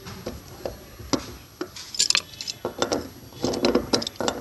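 Pipe wrenches clinking and scraping on a tight threaded pipe union as it is worked to loosen it: a run of sharp metallic clicks and knocks, thickest a little past three seconds in.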